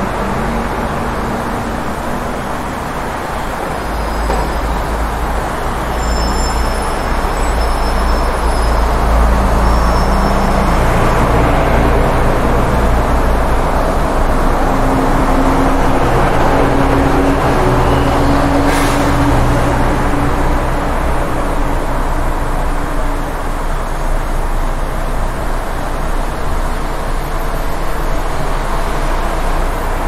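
Busy city street traffic: a continuous rumble of car and heavier-vehicle engines and tyres, swelling louder a few seconds in. A few faint high squeals come early on, and a short sharp hiss comes about two-thirds of the way through.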